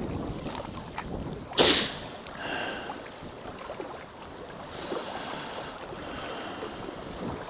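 Wind on the microphone and small waves lapping against a rocky shore, with one short, loud rush of noise about a second and a half in.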